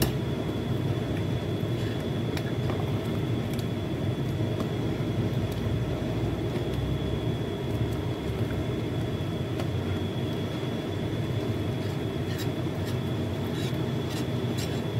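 A steady low rumble of background noise with a faint, thin, high steady tone. A few light clicks come from a metal ladle stirring soup in a rice cooker's inner pot and touching the pot.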